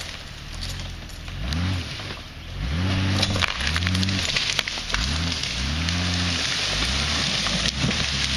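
Jeep Cherokee engine revving over and over, its pitch rising and falling about once a second as it strains to pull a tree over on a line. Through the middle come crackling and sharp snapping noises.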